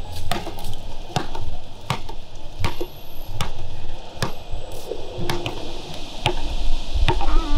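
Hip-hop backing track between rap verses: a drum beat of sharp, evenly spaced hits at about two a second, with the bass and melody coming back in near the end.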